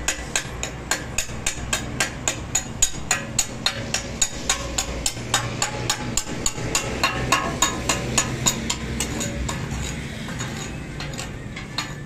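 Steady hammering on metal, about three sharp blows a second, that stops about nine seconds in, leaving a few scattered knocks over a low hum.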